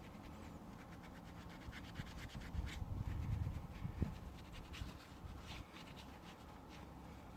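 A cloth scrubbing a car wheel rim by hand: a run of faint, quick rubbing strokes, loudest about a third of the way through.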